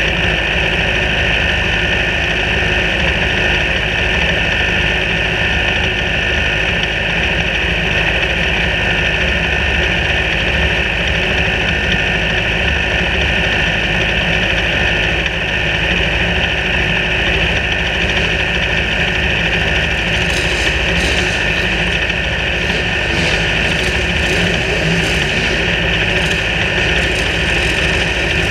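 Racing car engines idling steadily, heard from an open cockpit, with faint irregular crackling over them from about twenty seconds in.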